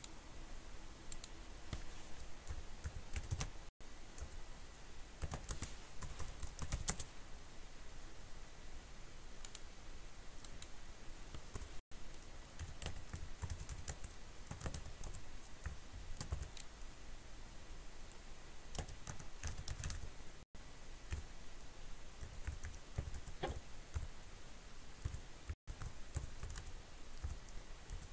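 Typing on a computer keyboard: irregular keystrokes in short runs with pauses between them.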